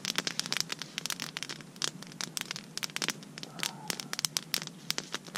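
Wood campfire crackling, with frequent sharp, irregular pops and snaps.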